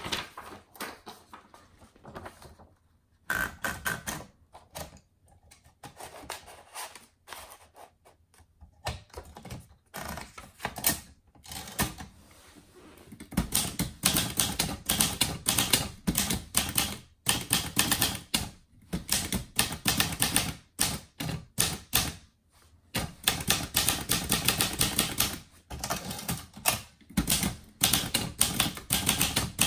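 Olivetti Lettera 31 portable manual typewriter being typed on: runs of sharp key and typebar clacks with short pauses between them. The typing is sparser and quieter for the first dozen seconds or so, then denser and louder.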